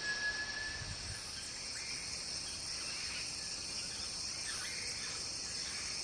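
Tropical rainforest ambience: a steady high-pitched chorus of insects. One short thin whistle comes in the first second, and a few faint bird chirps follow later.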